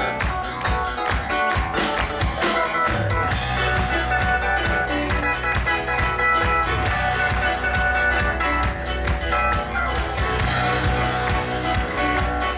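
Live band playing: keyboards, electric guitar and drum kit. The first three seconds are lighter, with crisp percussion ticks, then a heavy low end comes in and the full band plays on.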